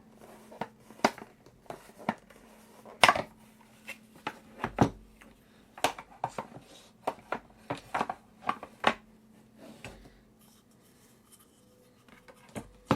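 Irregular clicks and knocks of a sharpening-stone storage box being handled, with stones and a strop set into it and the lid worked, with a few louder snaps. It goes quieter toward the end.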